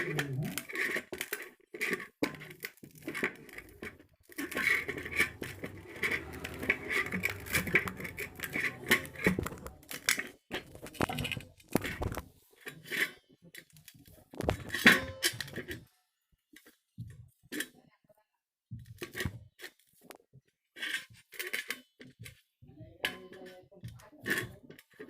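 Hands mixing and kneading a soft flour-and-water fishing bait dough: irregular scraping and tapping handling sounds, with a short lull about two-thirds of the way through.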